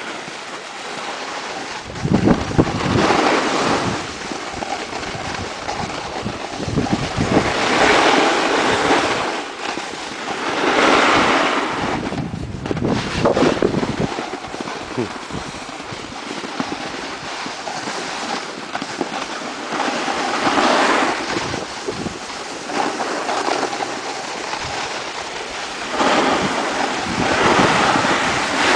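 Snowboards scraping and sliding over packed snow, with wind buffeting the microphone; the rushing noise swells and fades every few seconds, and there are low rumbling gusts about two seconds in and again around twelve seconds in.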